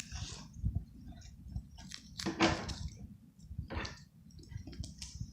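Sticky tape being pulled and handled while firecrackers are taped together: crinkly handling noises in several short, irregular bursts, the loudest about two and a half seconds in.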